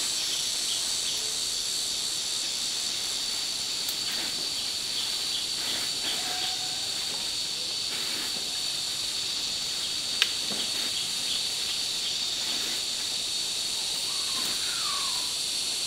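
Steady high-pitched drone of an insect chorus. A faint falling chirp comes near the end, and a sharp click about ten seconds in.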